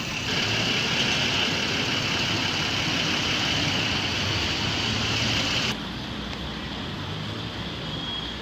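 Steady outdoor vehicle and traffic noise, with no distinct events, cutting abruptly to a quieter stretch of the same kind of noise about six seconds in.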